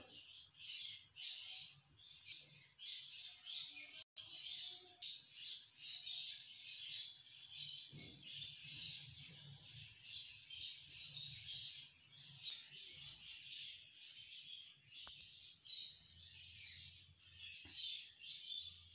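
Small birds chirping and twittering continuously, a dense high chatter with a few sharper chirps standing out, over a faint low hum.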